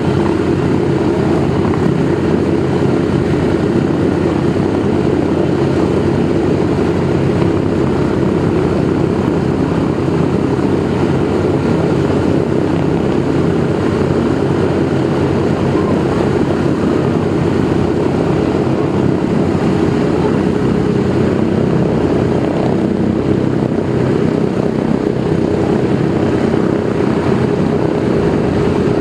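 The DC-3's two Pratt & Whitney R-1830-92 fourteen-cylinder twin-row radial engines running with their propellers turning: a loud, steady, deep drone that does not change.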